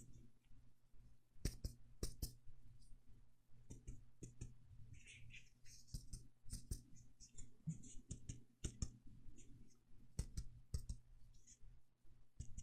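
Soft finger taps, often two in quick succession, at an irregular pace with short pauses: mock lung percussion, a finger tapped on a finger.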